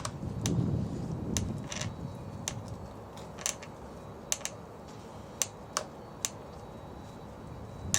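Small sharp clicks at irregular intervals, about a dozen in all, as the security screwdriver works the doorbell's security screw, with low handling rustle between.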